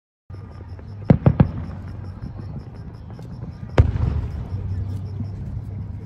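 Aerial fireworks shells bursting: three sharp reports in quick succession about a second in, then a bigger boom with a rolling tail near four seconds, over a steady low rumble.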